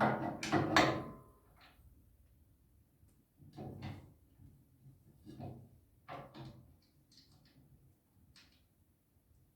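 Knocks and clunks of metal parts being handled and fitted while assembling the generator's stand and wheels. The loudest knocks come together in the first second, followed by a few single knocks and light clicks.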